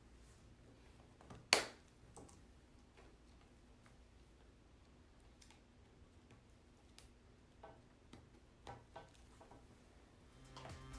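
Scattered sharp clicks of plastic cage parts being handled and snapped together: red feed grill covers pushed into green connectors. One clear snap about a second and a half in, and a few fainter clicks later on.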